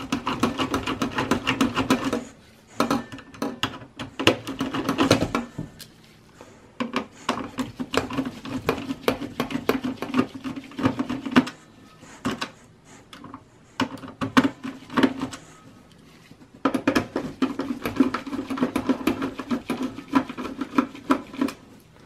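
Phillips screwdriver turning out motherboard screws from a steel PC chassis: rapid metallic clicking and grinding in several bursts with short pauses between them.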